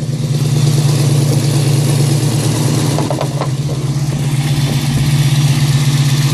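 1997 Mustang Cobra's 4.6-litre DOHC V8 idling steadily on a cold start through BBK long-tube headers. It has an exhaust leak from an unplugged EGR-delete hole.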